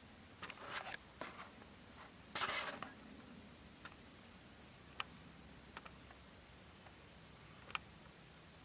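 Scratchy rustling and scraping close to the microphone: a few short bursts in the first second or so, a louder one about two and a half seconds in, then a few faint sharp ticks, over a quiet background.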